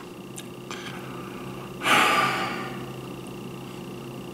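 A man's breathy sigh, one loud exhale about two seconds in that fades away in under a second.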